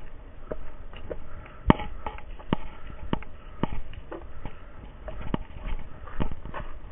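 Footsteps of people walking down a wooden stairway and onto a dirt forest trail, about two steps a second, with one sharper knock about a second and a half in.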